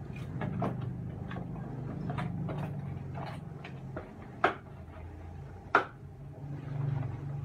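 Cardboard tool box being handled and opened by hand: a string of light taps and scrapes of cardboard, with two sharp snaps a little past the middle, over a steady low hum.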